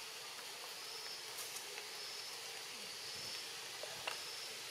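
Outdoor ambience of forest insects: a steady high hiss with a short high note repeating about once a second, and a faint click about four seconds in.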